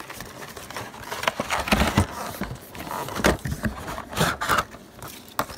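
A cardboard product box being opened and handled, with its packaging taken out: irregular scrapes, rustles and knocks of cardboard and plastic, louder in the middle.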